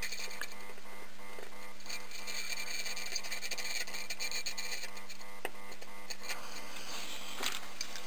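Electronics rework bench equipment running: a steady electrical hum with a fast, even, machine-like pulsing over it and a light hiss.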